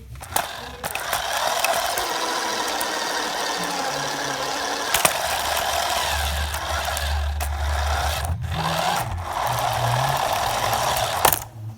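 An RC car's motor and gears running, with scattered clicks and a short break about eight and a half seconds in.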